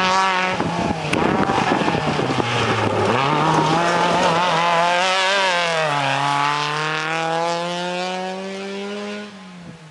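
Off-road rally buggy's engine revving hard as it slides through a dirt corner and pulls away. The note dips about three seconds in and again around six seconds, then climbs steadily before dropping away near the end.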